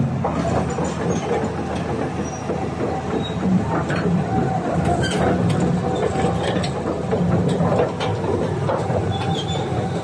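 Volvo EC480DL crawler excavator's diesel engine running steadily, with scattered metallic clicks and clanks over the low drone.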